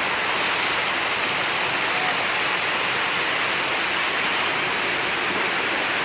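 Steady rush of water from a small waterfall spilling over rock into a pool.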